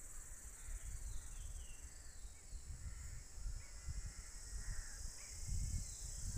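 Outdoor natural ambience: a steady high-pitched insect drone, several short falling bird chirps, and gusty wind rumbling on the microphone, stronger near the end.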